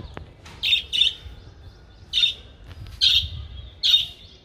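Pet budgerigars chirping: short, sharp, high chirps about once a second, with a quick double chirp near the start.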